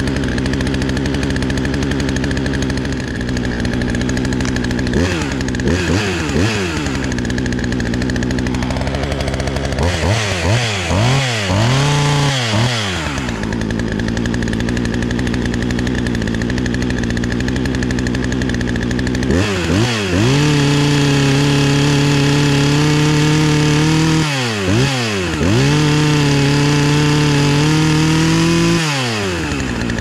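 A Poulan chainsaw's small two-stroke engine runs off choke and warms up just after a cold start on a newly fitted carburetor. It gets quick throttle blips about five seconds in and again around ten to thirteen seconds. From about twenty seconds it holds a higher steady speed with a couple more brief blips, then drops back to idle near the end.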